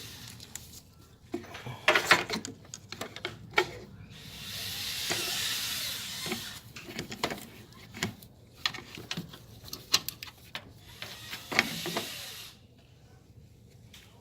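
Hands working a rubber drive belt onto the engine's pulleys: scattered clicks and knocks, with two longer rustling scrapes, one about four seconds in and one near the end.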